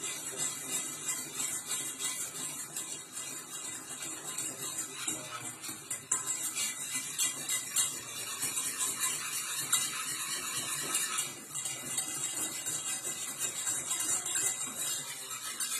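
A utensil stirring a thickening mixture in a pot on the gas stove: steady, rapid scraping against the pot.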